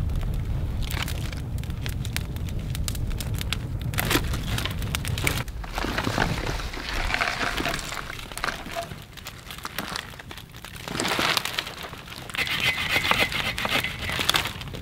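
Dry twigs and branches crackling and snapping as brush is handled and piled onto a freshly lit fire in a stone fire ring, in irregular clusters of small snaps. A low rumble underlies the first five seconds or so.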